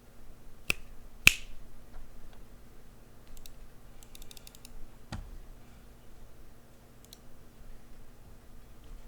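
Custom-built mechanical keyboard being pressed: two loud, sharp key clacks about a second in, then sparse single keystrokes and a quick faint run of clicks around four seconds in.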